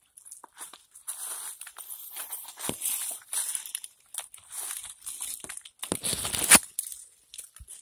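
Close rustling and crinkling right against the camera's microphone, with a louder scraping rush about six seconds in.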